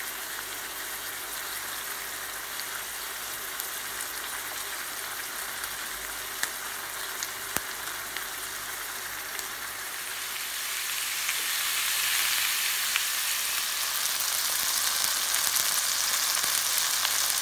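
Bone-in beef steak sizzling in a hot stainless steel frying pan: a steady hiss with a few sharp fat pops about six and seven seconds in. The sizzle grows louder about ten seconds in and stays up.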